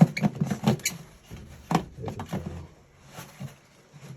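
Irregular clicks, knocks and light rattling of small objects being handled and set down.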